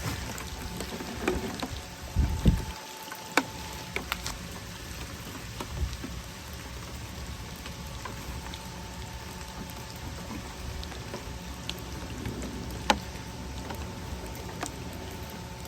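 Steady rain pattering on surfaces, with scattered sharp drips and taps and one low thump about two and a half seconds in.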